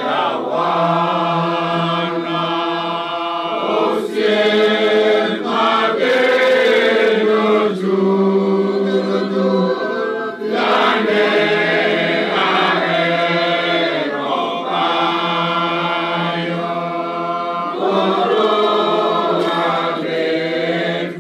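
A group of men singing a slow, chanted church hymn together into microphones, in phrases of long held notes.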